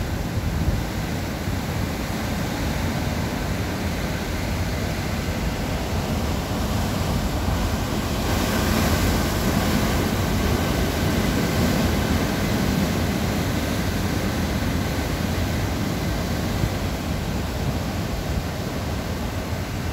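Rough sea breaking over rocks: a continuous rush of surf and white water that swells louder about eight seconds in, then eases.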